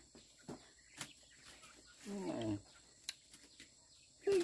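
Poultry calling once, a short falling call about two seconds in, with a brief second call near the end and a few faint clicks and taps.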